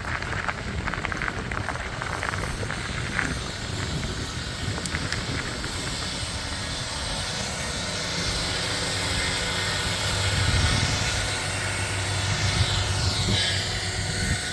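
Vehicle driving slowly, a steady mix of engine and tyre noise, with a low hum that grows louder about halfway through.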